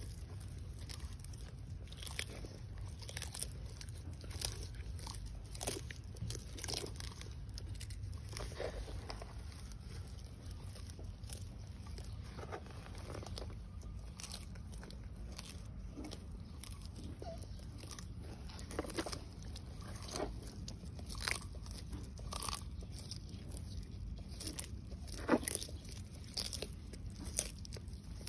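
Sulcata tortoises biting and chewing chopped grass and green stems: irregular crunches and snaps, a second or two apart, with one of the loudest a little before the end. A low steady hum lies underneath.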